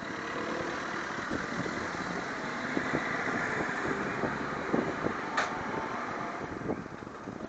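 Motor vehicle running, its noise swelling and then easing, with scattered light knocks and one sharp click about five and a half seconds in.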